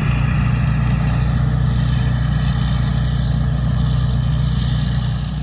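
Rice combine harvester running steadily, its engine and machinery giving a loud, even drone that eases slightly near the end.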